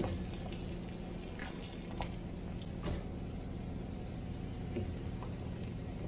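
Pickup truck engine running steadily at low speed as it tows a small vintage travel trailer, a low even hum. A few faint short ticks, with one sharp click about three seconds in.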